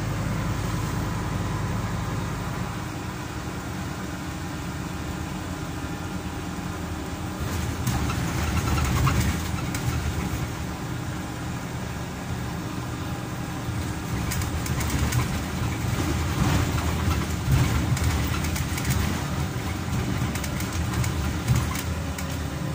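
Scania CN270UB city bus heard from the passenger cabin while it is driving: a steady low engine drone with road noise. It gets louder about eight seconds in and again through the second half, with knocks and rattles from the bodywork.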